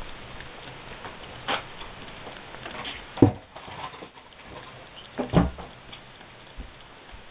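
A ferret lapping milk from a plastic bowl, broken by three sharp knocks, the loudest about three seconds in.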